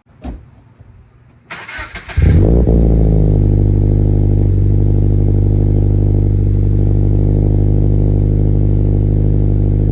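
Scion FR-S flat-four boxer engine being started: a short burst of cranking about a second and a half in, then it catches and settles into a steady, loud idle through the exhaust.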